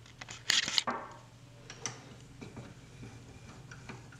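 Restored Craftsman 3 1/2-inch cast-iron bench vise being worked open. A sharp metal clatter with a short ring comes about half a second in, followed by scattered light clicks.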